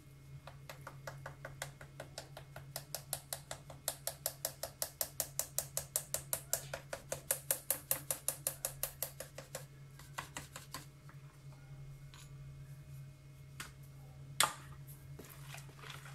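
Flour sieve shaken over a mixing bowl to sift flour, giving a rhythmic run of light clicks about five a second that swells and then tapers off, followed by one sharper knock near the end.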